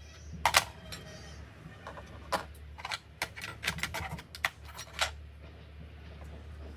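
A string of sharp, irregular clicks and taps, about a dozen, as small laptop parts and tools are handled, over a steady low hum.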